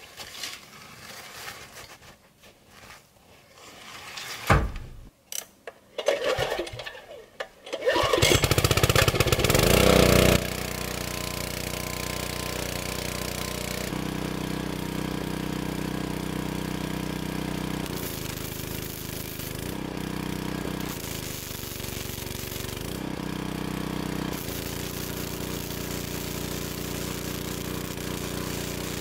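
Small portable generator engine starting about eight seconds in, running loud for a couple of seconds, then settling into a steady run. In the second half its note shifts in a few short spells as it powers an arc welder.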